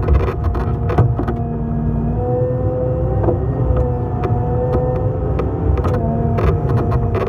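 A motor vehicle engine running steadily at idle, a continuous low rumble with a few short rattling clicks.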